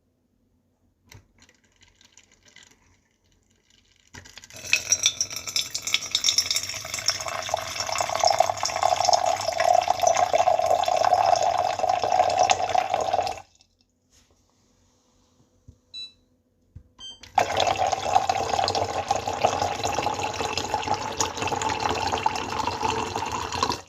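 Water poured in a steady stream into a vessel, twice: a pour of about nine seconds starting some four seconds in, then a short pause with a few small clicks, then a second pour of about six seconds that stops near the end.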